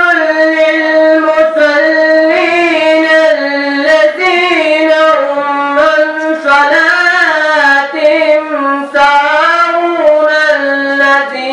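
A single high voice reciting the Quran in the melodic tajwid style, drawing out long ornamented notes that waver and glide up and down, with only brief breaths between phrases.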